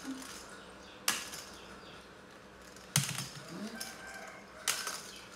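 A hollow plastic toy ball tossed up and caught in a hand: three sharp slaps, about two seconds apart.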